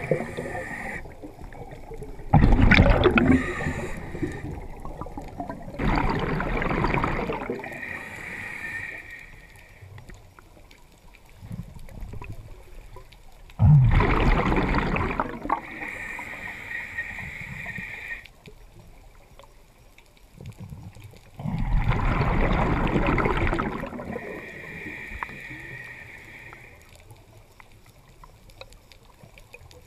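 A scuba diver breathing underwater: exhaled bubbles gurgle loudly from the regulator every several seconds, each burst followed by a quieter hiss as the diver inhales.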